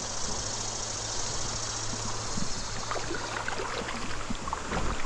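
Running stream water, a steady rushing hiss, with a few faint ticks in the second half.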